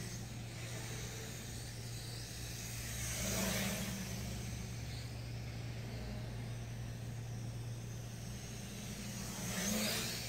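MJX X600 hexacopter's propellers whirring in flight. The sound swells louder and fades again twice, a few seconds in and near the end, as the drone passes close by.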